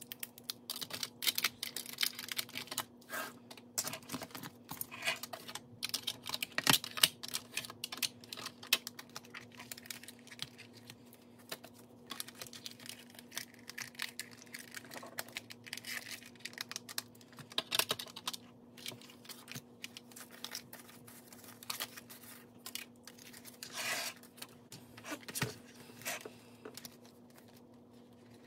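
Hands handling paper cash and plastic binder envelopes: a steady run of rustles, crinkles and light clicks.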